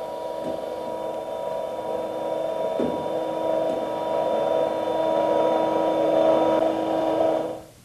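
Hydraulic power unit running with a steady hum and whine while hydraulic cylinders retract, getting slightly louder as it goes. A short low knock comes about three seconds in, and the sound fades out near the end.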